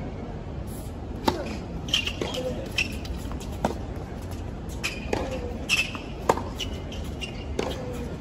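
Tennis balls struck by rackets and bouncing on a hard court during serve practice: a string of sharp pops at irregular spacing, with short shoe squeaks on the court surface.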